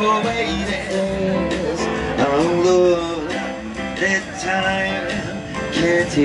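Band music: an old-time popular tune, with guitar backing under a melody of held notes that slide from one to the next.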